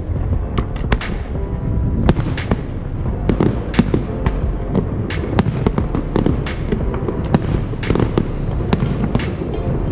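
Aerial fireworks shells bursting: irregular sharp bangs and crackles, one or two a second, over a steady low rumble.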